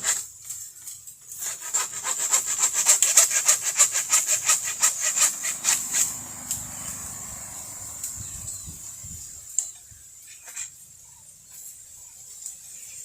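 A tool rasping against wood in a fast run of short sawing strokes, several a second, for about four seconds, then slower, quieter scraping. A steady high buzz of jungle insects runs underneath.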